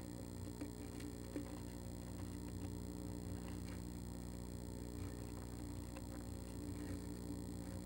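Steady electrical hum from the nest-box camera setup, with a few faint scattered clicks and scratches as a female northern flicker shifts on the wood shavings in the box.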